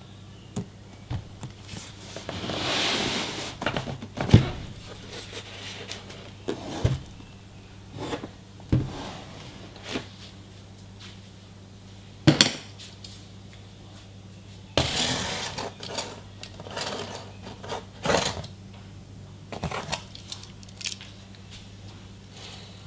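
Cardboard packaging and small hard parts of a Samsung SF350 monitor being handled on a table: scattered knocks, taps and light clinks, with two longer rustling scrapes about 2 s and 15 s in. A faint low steady hum runs underneath.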